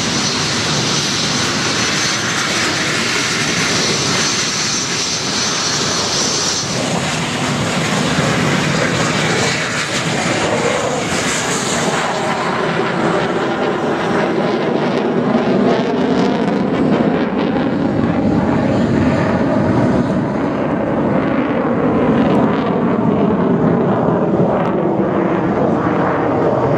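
A MiG-29A fighter's twin Klimov RD-33 turbofans running loud and continuous as the jet manoeuvres overhead. A strong high hiss dominates for about the first seven seconds, then the sound turns lower into a wavering rumble that rises and falls as the jet moves through the sky.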